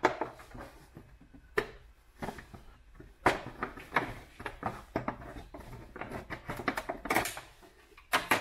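Irregular plastic clicks and knocks as the grey inner bezel is worked loose and pulled out of a Range Rover Sport headlamp housing.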